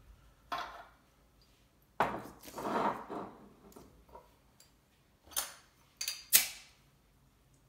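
Clinks and knocks of glasses, bottles and bar utensils being handled while a gin drink is mixed, with a short rush of noise about two seconds in.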